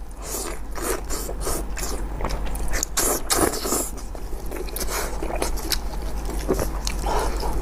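Close-miked scraping and rubbing from handling a cooked sheep's head, in irregular scratchy strokes.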